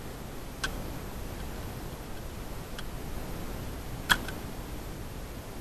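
Three short, sharp clicks from airsoft fire, spaced about two seconds apart, with the loudest about four seconds in, over a faint steady hiss.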